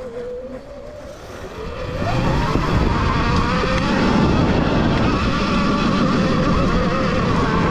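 A motorcycle engine running under way, its pitch wavering and climbing. About two seconds in it gets much louder and stays steady and loud.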